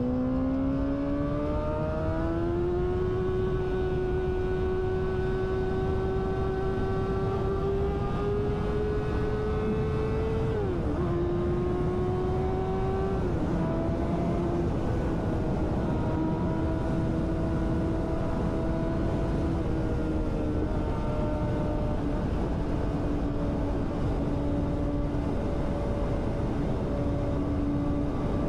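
Yamaha sport motorcycle engine pulling hard at highway speed, over a steady rush of wind. Its pitch climbs quickly in the first few seconds, dips sharply at two upshifts about 11 and 13 seconds in, then settles into a steady cruise that eases slightly lower.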